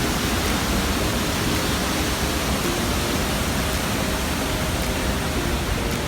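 Iguazu Falls, a huge volume of falling water, making a loud, steady rushing noise that does not let up.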